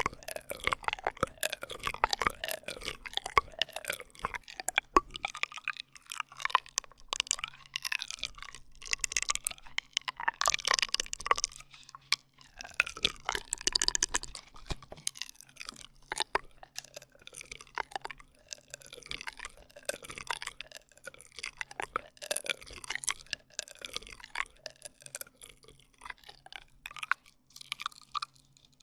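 ASMR straw sounds: plastic drinking straws worked close up, giving a dense run of crackling clicks and squeaky sliding squeals, with a few brief pauses.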